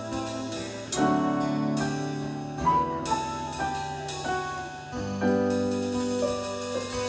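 Live band music: slow, sustained electric keyboard chords with acoustic guitar, the chords changing about a second in and again near five seconds. These are the closing bars of a song.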